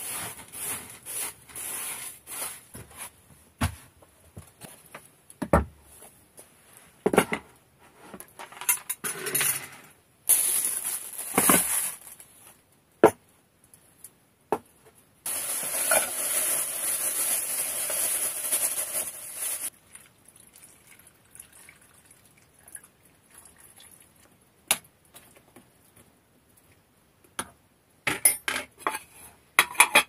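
A straw broom sweeping wooden floorboards in short brush strokes, followed by several separate knocks. A little past halfway comes a steady rushing noise of about four and a half seconds, and near the end a cluster of metal clinks as an aluminium lid is fitted onto a small saucepan.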